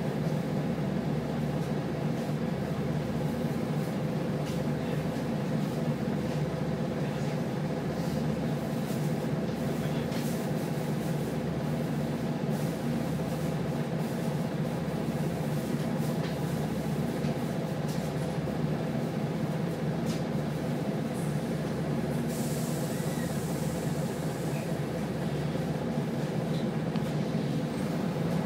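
Inside the cabin of a Wright Solar–bodied Scania single-deck bus, the diesel engine idles with a steady low drone while the bus stands at a stop. A brief hiss comes about 22 seconds in.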